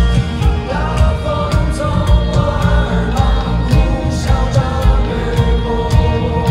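Live rock band playing: a male singer sings a melodic line over guitars, keyboard, bass and a steady drum beat. The voice comes in about a second in.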